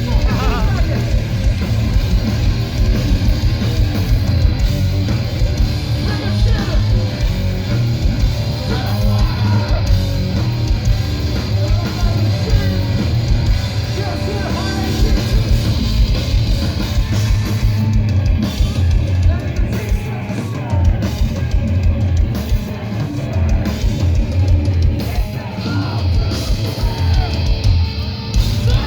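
A metalcore band playing live at full volume: heavy distorted guitars and a pounding drum kit, with vocals, unbroken throughout.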